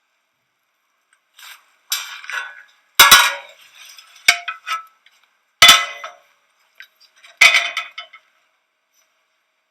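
Kitchen pans and dishes clattering: about five sharp clanks and clinks a second or so apart, each ringing briefly, the loudest about three seconds in.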